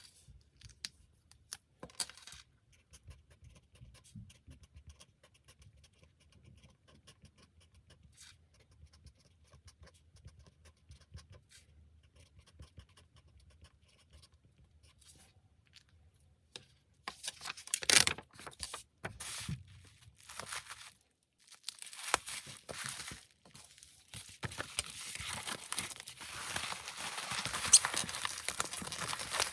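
Packaging being handled while goods are packed: faint scattered taps and clicks, then, a bit past halfway, packaging material crinkling and tearing in bursts that grow denser and louder toward the end.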